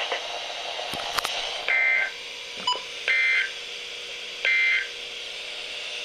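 Weather radio receivers sounding the EAS end-of-message code: three short, buzzy data bursts about 1.4 s apart, marking the close of the weekly test broadcast. Two sharp clicks come about a second in, before the first burst.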